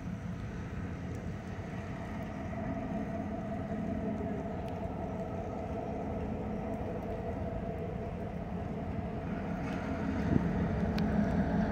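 EMD GP38 locomotive's 16-cylinder two-stroke diesel engine running while it moves a freight car slowly. A steady low drone that grows louder near the end as the locomotive draws closer.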